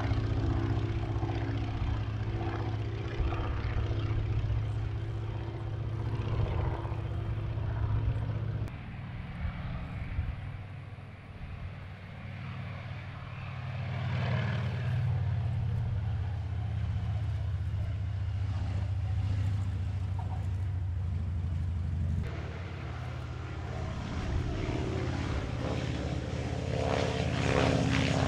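Piston engines of propeller aircraft flying low past, a Boeing-Stearman biplane and a T-28 Trojan: a steady engine drone that changes suddenly in pitch and level twice where shots are cut, and dips briefly about a third of the way in.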